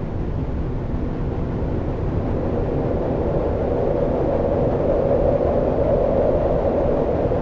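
Synthesized wind from an analog modular synthesizer: ungated noise passed through a filter whose brightness is being swept, giving a steady rushing hiss. From about the middle a resonant whistling band grows louder as the filter resonance is brought up, making the wind more intense.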